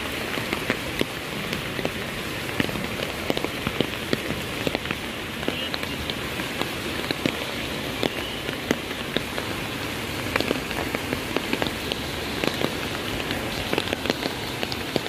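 Steady rain falling through the trees, with many irregular sharp ticks of drops striking close by over an even hiss.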